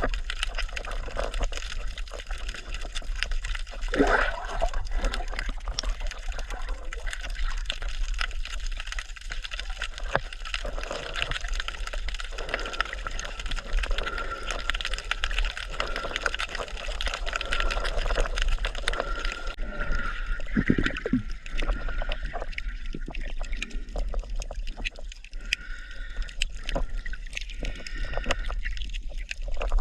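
Water sloshing and gurgling, with many small clicks and splashes.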